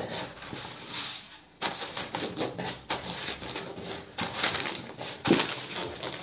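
A large sheet of paper crinkling and rustling under two hands pressing it down hard onto a tray of shredded kadayıf pastry, in irregular crackles. The crackles stop briefly about a second and a half in and are sharpest between about four and five and a half seconds in.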